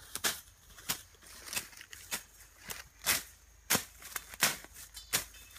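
Machete blade chopping through grass and weeds close around the base of an orange tree: a steady run of about nine sharp swishing cuts, roughly one every half second or so.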